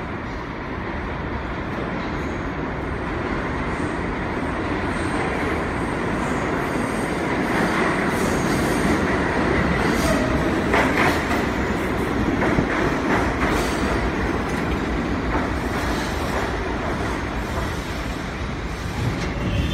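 An R32 subway train pulls into an underground station, its rumble growing louder as it nears. Its wheels clatter over the rail joints in bursts of clicks, with a brief squeal about ten seconds in, and it stays loud as the cars run past.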